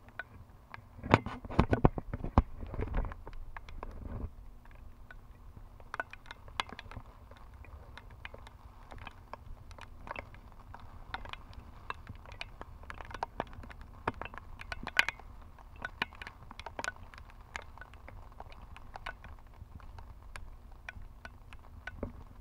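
Raindrops ticking irregularly on the camera, with wind rumbling on the microphone, heaviest in the first few seconds.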